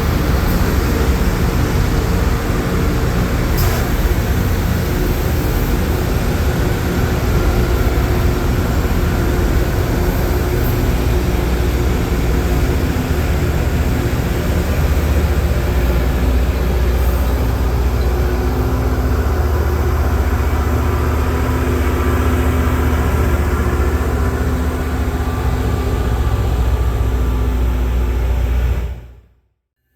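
LORAM rail grinder working along the track: heavy diesel engine rumble with a steady, harsh grinding noise from its stones on the rail, holding level throughout.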